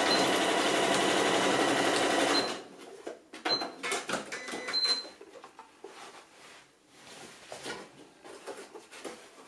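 Janome Skyline S5 computerised sewing machine stitching a seam through layers of cotton fabric at a steady speed, stopping abruptly about two and a half seconds in. After that, quieter rustling and shifting of the fabric, with two short high beeps.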